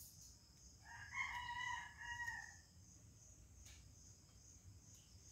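A rooster crows once, faintly: a single pitched call lasting about two seconds, starting about a second in, over a steady high chirring of crickets.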